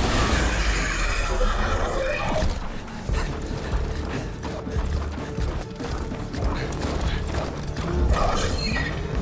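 Cinematic background music layered with mechanical clicking and clanking sound effects throughout, over a steady low rumble.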